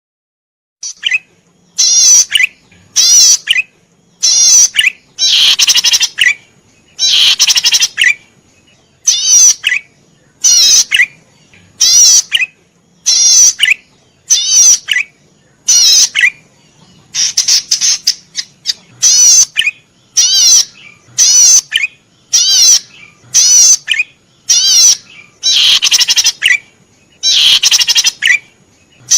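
Cici padi merah, a cisticola, singing without pause: short bursts of rapid, high, chattering notes, about one burst a second, beginning about a second in.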